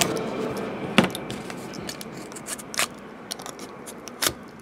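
Utility knife blade slicing open the edges of trading card packs: scratchy scraping cuts through the wrappers, with a few sharp clicks, the loudest about a second in and others near three seconds and just before the end.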